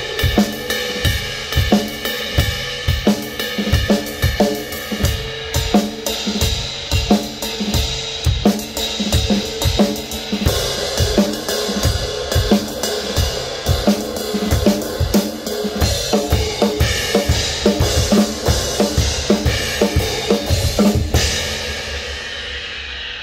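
Drum kit played in a driving groove of kick and snare, with Waldman B20 bronze crash cymbals struck again and again over it. About 21 seconds in the playing stops and the last crash rings out and fades.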